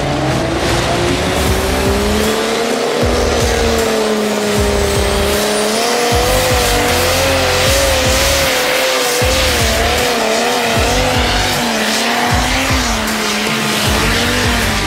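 Diesel pulling tractor's engine run flat out as it drags a weight-transfer sled down the pulling track, its note wavering up and down under the load, with a high whistle rising in the first few seconds. Background music plays along with it.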